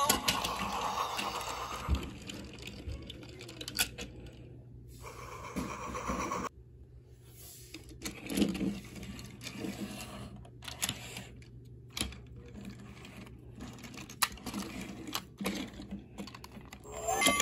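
Scattered light clicks and knocks of plastic toy vehicles being handled on a tabletop: a VTech toy train and its trailer being moved about.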